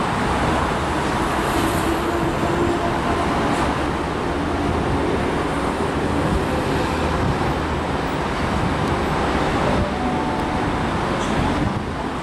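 Steady rumble of road traffic mixed with a Tangara electric suburban train running in toward the station.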